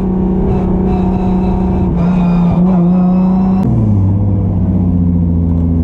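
Car engine running at steady, fairly high revs, then with a click about two-thirds of the way in the revs drop sharply and it settles at a lower steady speed.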